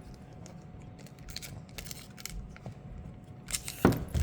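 Foil wrapper of a Pokémon booster pack crinkling as it is handled and pulled at to open it: scattered light crackles that get busier near the end.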